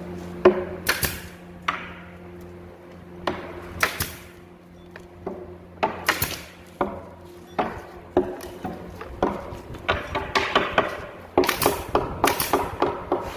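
Pneumatic nail gun firing many times in quick, irregular succession, driving nails into a wooden cabinet door, each shot a sharp crack, some followed by a short hiss of air.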